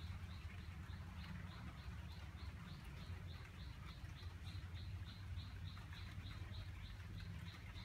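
High-pitched chirping that repeats evenly, about four chirps a second, over a steady low rumble.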